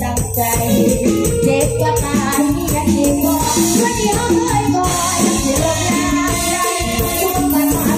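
Amplified live mor lam music in the Khon Kaen style: a woman singing over a band with a steady percussive beat.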